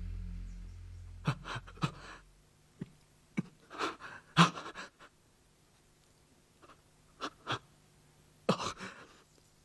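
A man gasping and panting in pain in short, ragged bursts, his eyes freshly stabbed blind. A low hum fades out over the first two seconds.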